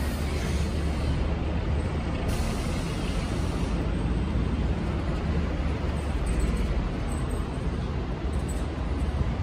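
Steady low rumble of heavy vehicle noise running close by, with a hiss over it.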